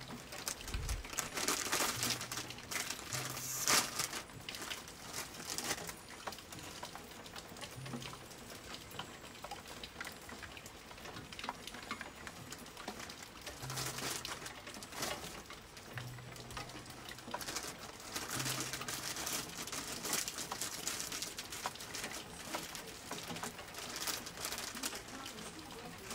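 Heavy rain pattering, with many irregular drops ticking and swells where it comes down harder. No thunder is heard.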